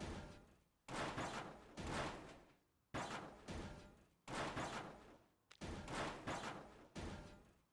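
A series of sudden heavy hits, roughly one a second, each fading away over most of a second. A few come in quick pairs.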